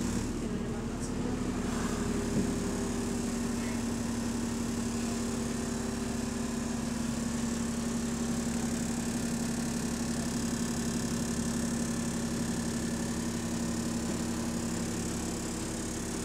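Bus engine and its cooling fan running, heard from inside the bus as a steady drone with a constant hum, on a bus running in limp mode.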